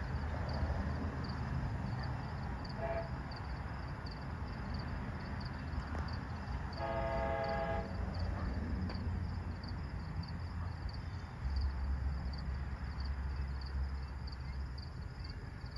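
Distant Amtrak locomotive horn sounding a short toot about three seconds in, then a blast of about a second near the middle, over the low rumble of the approaching train, which grows stronger about two-thirds of the way through.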